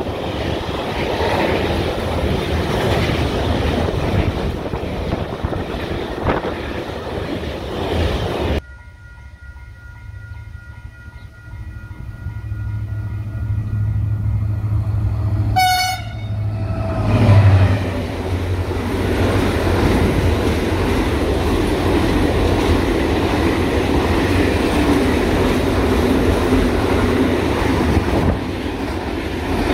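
Container freight wagons rolling past close by with clickety-clack. About eight and a half seconds in the level drops suddenly, and a second container freight train behind a Class 6000 locomotive approaches. Its horn gives a short toot about sixteen seconds in, and its wagons then roll past steadily.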